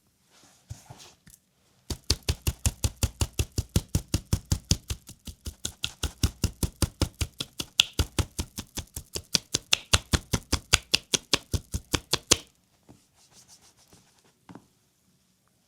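Hands striking a leg in rapid percussive massage (tapotement): a long, even run of sharp slaps, about five or six a second, starting a couple of seconds in and stopping suddenly well before the end. Faint skin-rubbing sounds come before and after.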